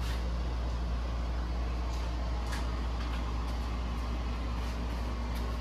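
A steady low hum with a few faint light clicks and taps of small metal parts, like a small screwdriver being worked on a carburetor float.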